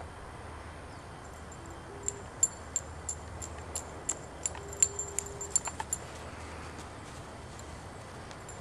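Metal collar tag jingling on a running puppy: a run of light, irregular metallic clinks from about two to six seconds in, over a faint steady low hum.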